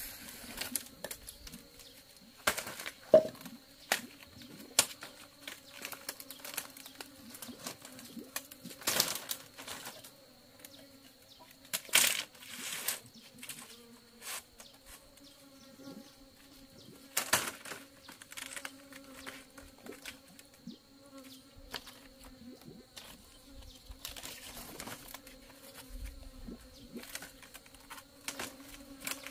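Split bamboo strips knocking, clattering and scraping against each other and on a concrete floor as they are picked up and laid down, in irregular bursts, the loudest about three seconds in. A steady low buzz runs underneath.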